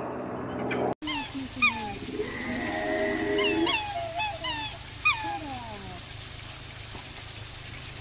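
Black swans calling: a flock's run of high, musical bugling notes, each sliding down in pitch, with a few longer held notes among them. The calls start after a sudden cut about a second in and thin out after about six seconds.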